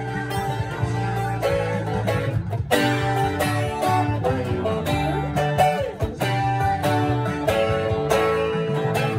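Twelve-string acoustic guitar strummed in a steady rhythm, its chords ringing between strokes.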